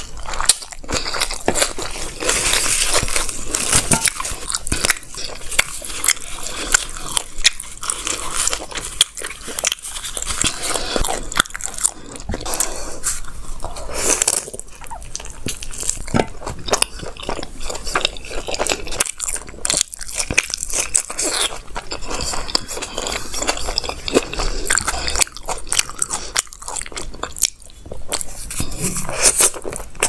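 Close-miked eating: biting and chewing rumali roti and momos in gravy, with a steady stream of quick wet mouth clicks, smacks and small crunches.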